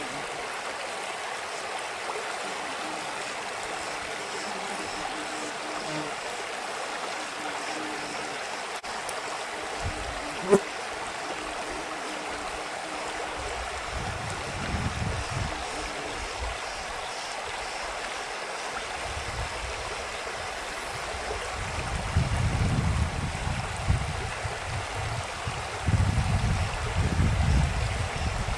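Creek water running steadily. Low rumbling bursts come in partway through and grow stronger near the end, and there is a single sharp knock about ten seconds in.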